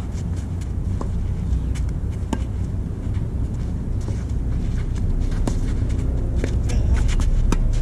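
A steady low rumble of wind buffeting the microphone, with scattered sharp knocks of a tennis racket striking the ball during a rally.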